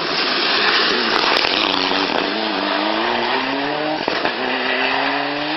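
Rally car at full throttle: a loud roar as it passes close, then the engine climbing in pitch as it pulls away, a gearchange about four seconds in dropping the pitch, and the revs climbing again.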